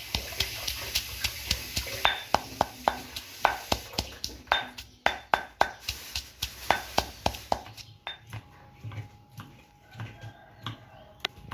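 Metal spatula repeatedly striking and scraping a wok while stir-frying, sharp ringing clanks about two to three a second. A steady hiss runs underneath and fades about eight seconds in, after which the clanks thin out.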